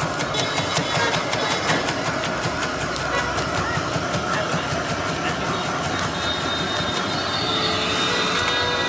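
Rapid metallic clicking of eggs being beaten in a steel pan, thickest in the first few seconds, over a steady street-stall din. A faint held tone comes in near the end.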